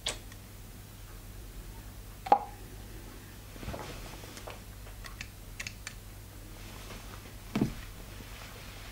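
Small scattered clicks and taps of a pipette being handled against the deck of a rebuildable dripping tank atomizer while it is filled with e-liquid. There is a sharper tap about two seconds in and a duller knock near the end.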